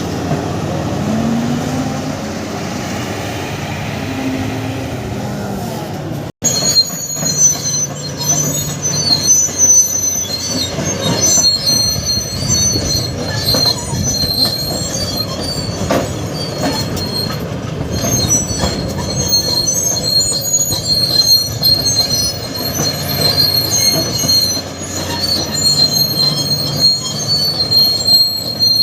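Kobelco SK520 excavator's engine and hydraulics running, the pitch rising and falling. After an abrupt cut about six seconds in, its hydraulic breaker hammers away over the engine, with sharp uneven strikes and a high metallic ringing.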